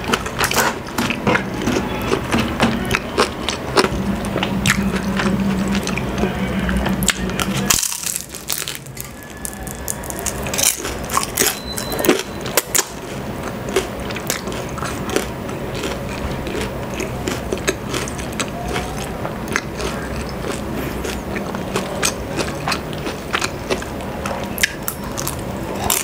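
Close-up biting, crunching and chewing of a deep-fried Filipino spring roll (lumpiang Shanghai), its crisp wrapper giving many sharp crunches throughout.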